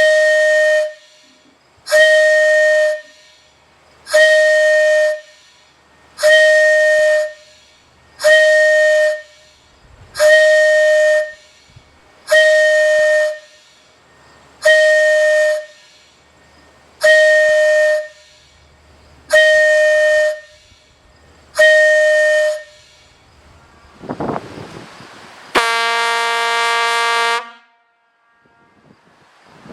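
A steam whistle sounds eleven short blasts about two seconds apart, each a steady high tone. A rush of air follows, then a diaphone sounds one lower, richer blast lasting about two seconds.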